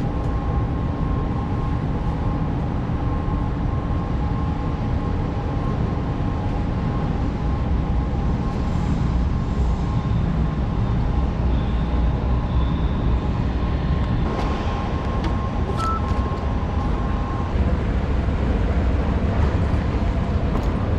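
Steady low vehicle rumble with two faint steady whining tones that stop about three-quarters of the way through, and a brief higher tone a little before they stop.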